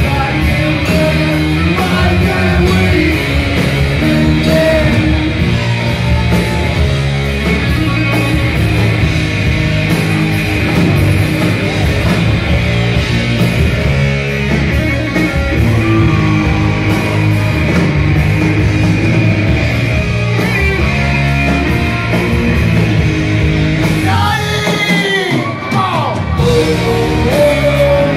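Heavy metal song with a full band and a singer. About 24 seconds in there is a wailing passage of rising and falling notes.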